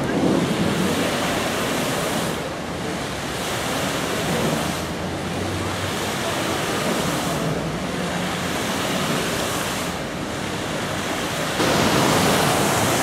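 Steady rushing splash of large fountain jets falling into a pool, mixed with wind on the microphone; it gets louder about a second and a half before the end.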